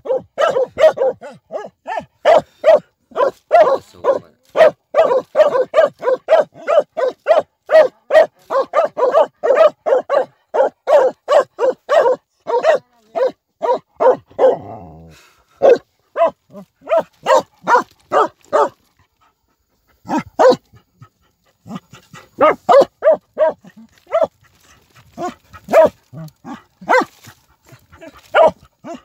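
Vietnamese native hunting dogs barking rapidly at a bamboo rat burrow, about three barks a second in an unbroken run. The barking breaks off for a second or two past the middle, then resumes in looser bouts.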